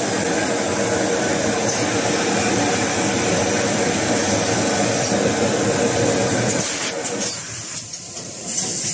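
Toilet-roll bundling and packing machine running: a steady mechanical drone with a held hum and a constant hiss. Near the end the drone dips and a couple of short, sharp hisses stand out.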